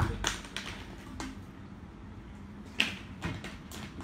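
A few scattered short, light clicks and knocks of handling in a small room, the clearest one a little under three seconds in, over a faint low hum.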